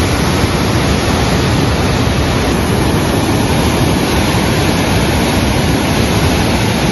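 Floodwater gushing out through a full reservoir's spillway gates: a steady, loud rush of water.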